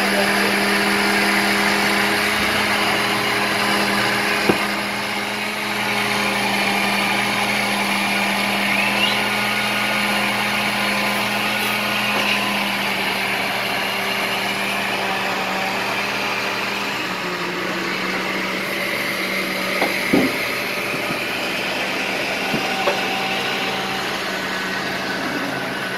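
Steady motor drone from a nearby concrete-block-making machine, its pitch stepping slightly lower about two-thirds of the way through, with a few short knocks.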